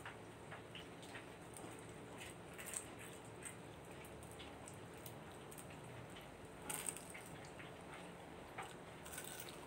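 Soft chewing and mouth sounds from someone eating a fried chicken-and-cheese dynamite roll, with a few brief crisp bites or smacks, the clearest about seven seconds in.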